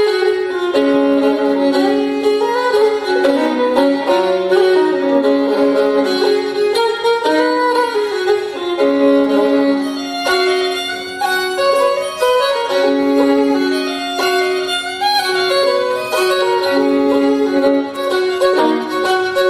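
Fiddle playing an Irish-style jig melody, mixing quick runs of notes with longer held notes.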